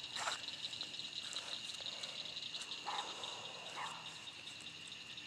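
Night-time chorus outdoors: a steady, high, finely pulsing trill of insects such as crickets, with short lower calls every second or so.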